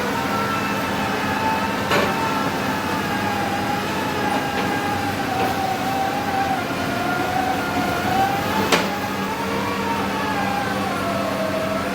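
Sany SR150C hydraulic rotary piling rig running while it drills, a steady engine hum under a whine that wavers up and down in pitch. Two sharp metallic knocks, about two seconds in and near the end.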